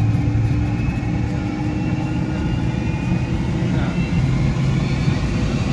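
Airliner cabin noise while the jet taxis after landing: a steady low hum from the engines over a broad rumble, heard from a window seat by the wing.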